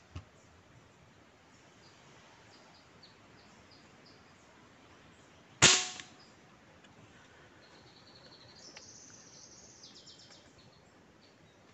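A single sharp air-rifle shot a little over halfway through, against faint chirping birds, with a higher bird call drawn out over the last few seconds.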